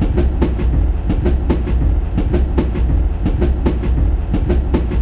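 A train running on rails: a quick, steady clickety-clack of wheels over rail joints above a deep, continuous rumble.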